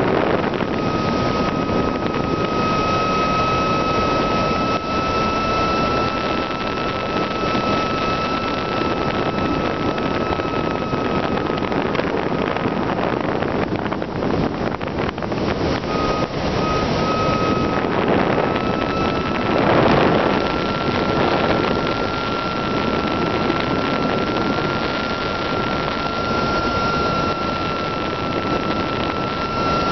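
Steady rush of airflow over the onboard camera of a Swift S1 model aerobatic glider in flight. A thin, steady high whine runs through it, fades out a little before halfway, and returns.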